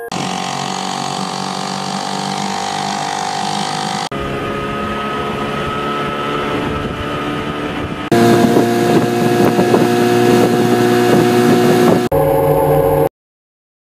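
Outboard motors running with a boat under way, in several spliced clips: the steady engine note changes abruptly about every four seconds. It cuts off suddenly about a second before the end.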